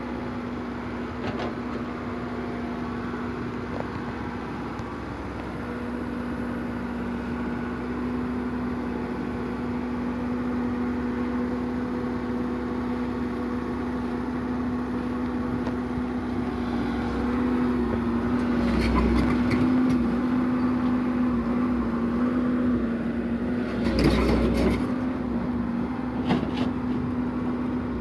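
Komatsu hydraulic excavator's diesel engine running steadily under load as the machine tracks onto a truck's steel ramp, growing louder in the second half. Metal clanks come twice in the second half, as the machine moves over the ramp.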